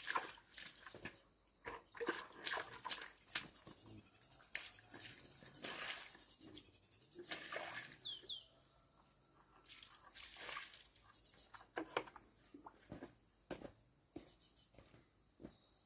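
Irregular rustling and crackling clicks, with a fast high insect buzz through the first half and a brief bird chirp about eight seconds in.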